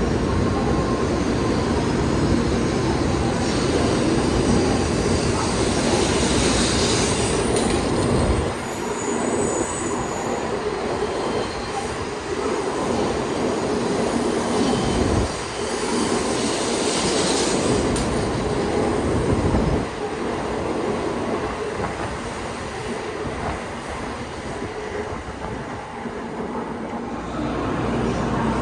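Tokaido Shinkansen train running on the rails just after departure: a steady rolling rumble of wheels and track, with the low rumble dropping off sharply a few times.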